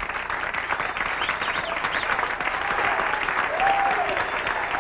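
A crowd clapping and applauding, with voices calling out over the clapping.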